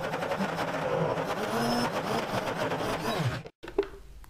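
High-powered blender motor running under a thick load of frozen bananas with carob and cocoa, its pitch wavering as a tamper pushes the mix onto the blades. About three seconds in the motor winds down and it stops, the ice cream ready.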